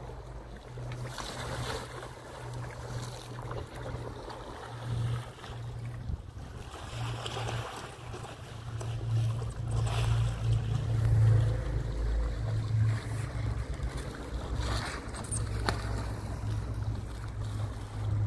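A small boat's motor runs with a steady low hum that swells louder in the middle, under wind buffeting the microphone.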